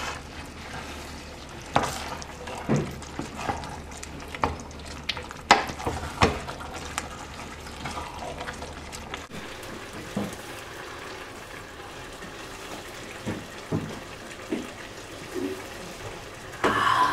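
Vegetable soup stirred in a steel pot with a wooden spoon, with about a dozen irregular knocks of the spoon against the pot over a low steady hiss of the simmering soup.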